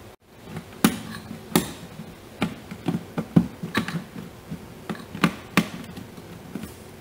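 A string of sharp, irregular clicks and taps from a screwdriver and screw working against the plastic windshield cowl as a cowl screw is started.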